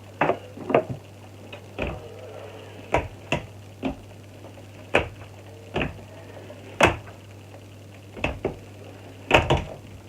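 Irregular sharp knocks and clicks of things being handled and set down during window cleaning, some coming in quick pairs, over a steady low hum.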